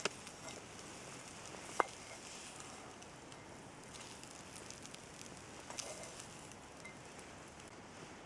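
Chopped bratwurst and egg frying in a small pot on a wood-burning camp stove: a faint steady sizzle, with one sharp click about two seconds in.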